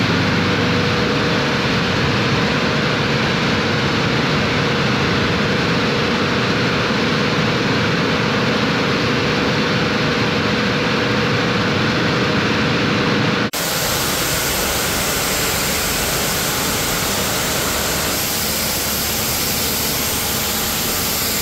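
Pressure-washer jet spraying water from a distance onto a car's waxed paint as a rinse: a loud, steady hiss, with a steady hum under the first part. About 13 seconds in the sound shifts abruptly to a brighter, closer hiss.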